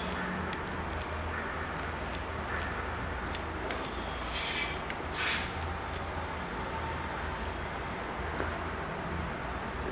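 Eating by hand close to a lapel microphone: fingers squishing and mixing rice and curry on a plate, and chewing, heard as small scattered clicks and a brief louder noise about five seconds in, over a steady low background rumble.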